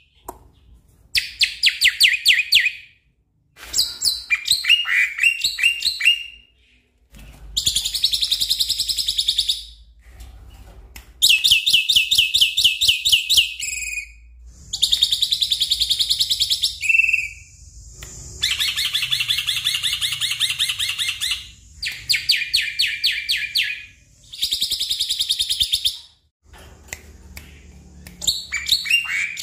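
Black-winged myna (jalak putih) singing in full song. It gives about eight loud phrases of rapid rattling, chattering notes, each a second or two long, with short pauses between.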